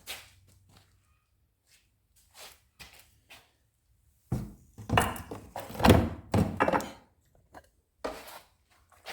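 Metal engine top-end parts of a Honda CB350 Four being handled during a tear-down: a few light clicks, then a cluster of loud knocks and clunks in the middle, with one more thunk near the end.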